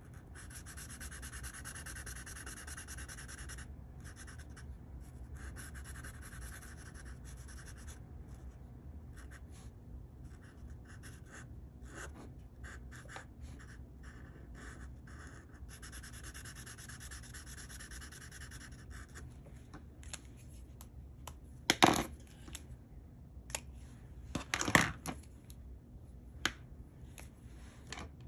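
Felt-tip marker rubbing and scratching across paper in back-and-forth colouring strokes, some runs steady for a few seconds, others broken into quick short dabs. Two louder sharp knocks about three seconds apart in the second half.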